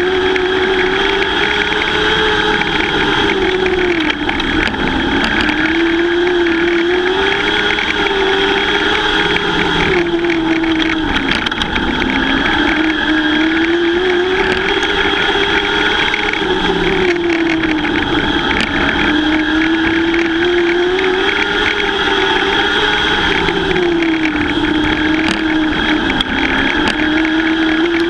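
Lightning sprint race cars running laps on an oval track. The engine note rises and falls over and over as the cars accelerate down the straights and ease off for the turns.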